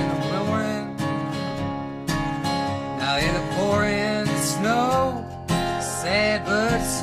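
Acoustic guitar strumming a steady country-folk accompaniment, with a lead melody of bending, sliding notes played over it: an instrumental break between sung verses.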